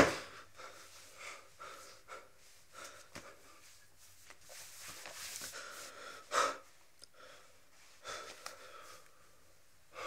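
A young man breathing hard in short, uneven gasps, with a louder gasp about six seconds in.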